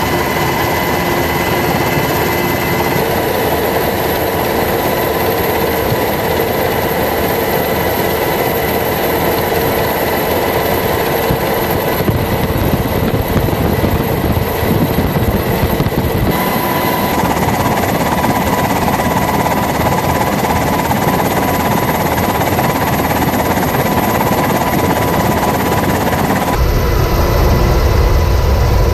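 Loud, steady aircraft engine noise with a few whining tones over a rushing roar. It changes abruptly twice, about halfway through and again near the end, where it turns deeper.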